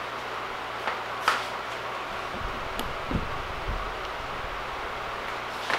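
Steady room tone, a low even hiss, broken by a few faint clicks and some soft low thuds near the middle.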